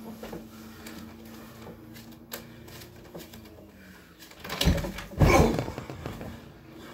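Two heavy thuds about half a second apart, a person jumping down from a nightstand and landing on a bed mattress.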